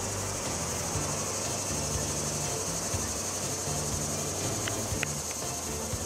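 Steady high-pitched buzz of insects in summer trees, with the low rumble of a C3 Corvette's V8 underneath as the car rolls slowly away at low revs.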